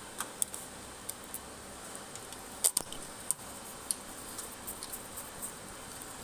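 Scattered small clicks and taps of hands and tools working on a rack-mounted amplifier module and its fixing screws, the loudest a double click about two and a half seconds in, over a steady faint hiss.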